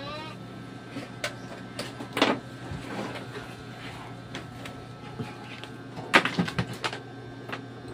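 Light clicks and knocks from hands connecting an audio cable at the back of a karaoke amplifier, with a quick cluster about six seconds in, over a steady low hum.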